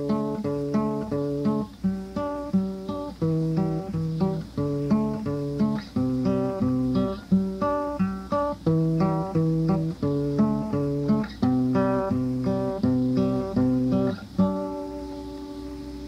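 Instrumental close of a song: an acoustic guitar picks a repeating pattern of single notes and chords. About a second and a half before the end it lands on a last chord that rings out and fades.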